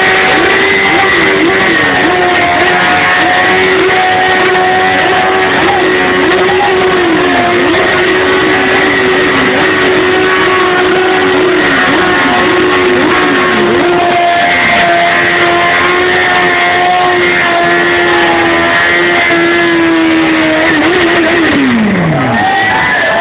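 Motorcycle engine held at high revs during a burnout, the rear tyre spinning in place; the revs dip and recover again and again, then fall off sharply about 21 seconds in.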